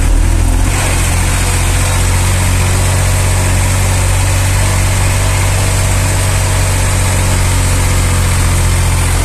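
Massey Ferguson 240 S tractor's three-cylinder Perkins diesel running steadily under load, heard from the driver's seat while pulling about three tonnes.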